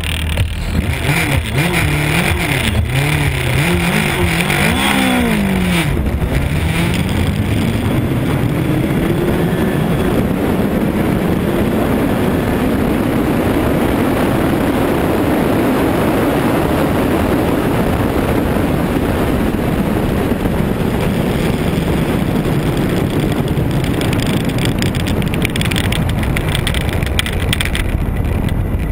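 Kawasaki ZZR1400 inline-four engine at full throttle on a drag run. Its pitch climbs and drops with several quick upshifts in the first six seconds, then pulls in a long rise in top gear and slowly winds down as the bike slows, under heavy wind rush on the onboard microphone.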